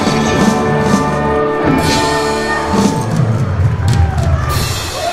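Live rock band playing an instrumental passage without vocals: sustained guitar and keyboard chords over bass, with cymbal crashes about two seconds in and again near the end. The level drops just before the end.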